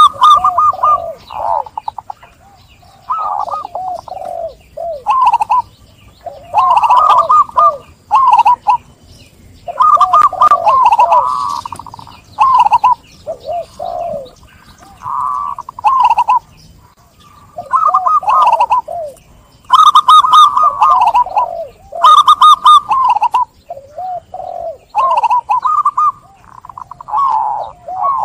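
Zebra doves (perkutut) cooing, one rolling, bubbling phrase after another with short pauses between, the calls overlapping in places.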